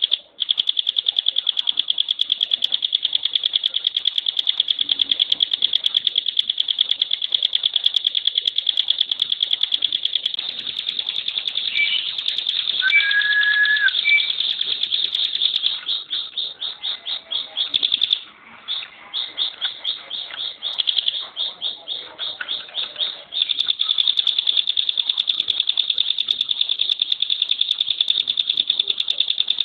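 Ciblek (prinia) singing its rapid-fire 'tembakan' song: a long, fast, dry rattling trill at a high pitch, held almost without a break. It splits into shorter bursts for several seconds past the middle, and a brief lower whistled note sounds about halfway through.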